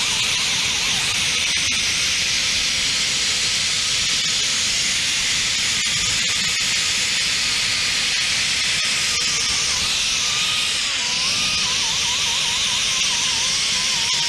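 Grinder running steadily against rusty metal as it cleans the rust off a brake caliper slider area, a harsh hiss with a motor tone that wavers in pitch under load from about ten seconds in.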